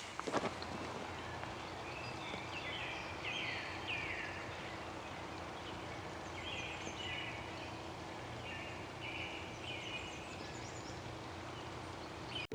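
Outdoor ambience with a songbird calling: short, repeated phrases that slide down in pitch, in a cluster in the first few seconds and again midway, over a steady background hiss.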